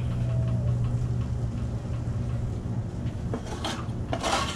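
Metal slotted spatula scraping and clinking against a stainless frying pan as cooked fish pieces are lifted out, over a steady low hum. The loudest scrapes come near the end.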